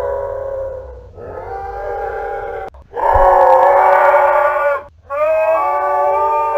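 Camel calling: a series of long, drawn-out, pitched calls with short breaks between them. The call under way fades about a second in, then three more follow, the one in the middle the loudest.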